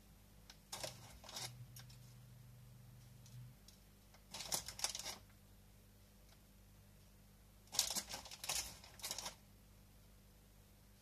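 A plastic bag of salt crinkling and rattling in three short bursts, each about a second long, as a hand digs into it for pinches of salt.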